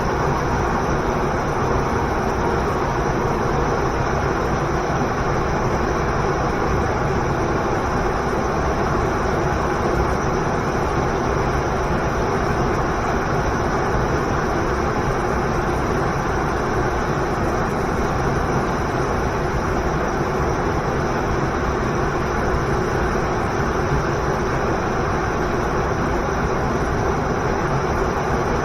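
Waterfall and river rushing: a loud, steady, even wash of falling water, deep and unbroken.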